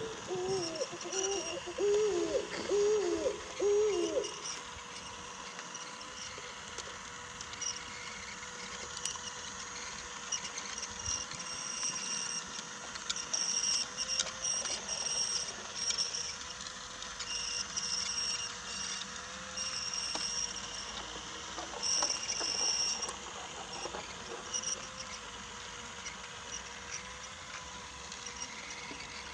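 Wooden Brio toy train running on wooden track: a steady motor hum with wheels clicking and rattling over the rails. A quick run of five or six hooting toots sounds in the first few seconds.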